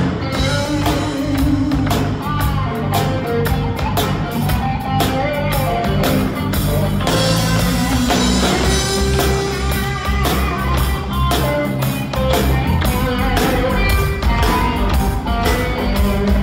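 Live rock band playing with electric guitar, bass guitar and drum kit, the drums keeping a steady beat under the guitars.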